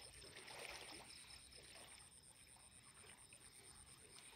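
Near silence: faint stirring of river water around a man wading chest-deep, over a steady, faint, high-pitched pulsing tone.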